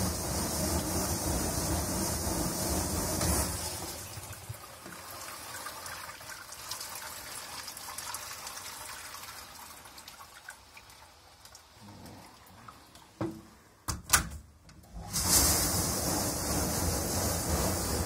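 Fagor AD-48C dishwasher running its wash, a steady rush of spraying water that stops about three seconds in. A quieter hiss follows, then a few knocks and clunks, and the spraying starts again loudly about fifteen seconds in; the wash is interrupted while the door is open and steam escapes, and resumes once it is shut.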